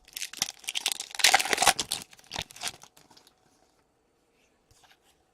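Foil wrapper of an Upper Deck hockey card pack being torn open and crinkled: a dense rustling and ripping for about three seconds, loudest in the middle, then dying away to a few faint ticks.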